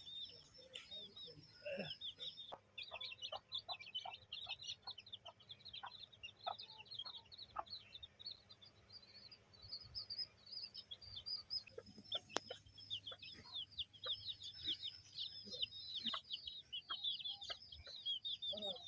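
A flock of birds chirping without pause: many quick, high, downward-sliding peeps overlap throughout, with short soft ticks scattered among them.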